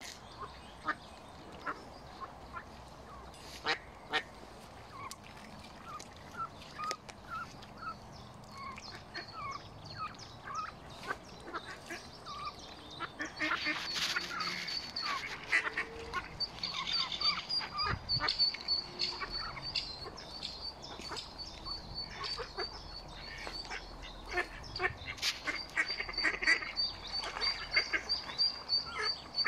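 Mallard ducklings peeping: scattered short calls at first, then from about halfway a fast, continuous run of high, thin peeps, with lower duck quacks among them.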